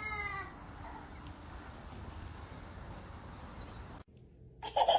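A short falling-pitched cry at the start, then a steady hiss that cuts off abruptly after about four seconds. Near the end a baby starts laughing loudly.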